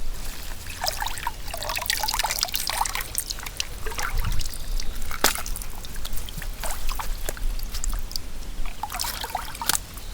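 Water splashing and trickling in irregular short bursts, busiest in the first few seconds and again near the end.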